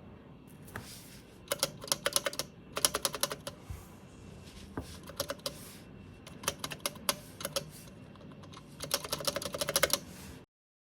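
Typing on an IDOBAO ID80 mechanical keyboard with tactile Kiwi switches and PBT keycaps: quick runs of key clacks in five bursts with short pauses between them. The sound cuts off abruptly near the end.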